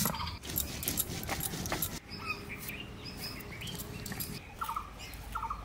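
A stone roller scrapes as it grinds dried red chillies on a stone slab. The grinding stops about two seconds in, and birds chirp and call for the rest.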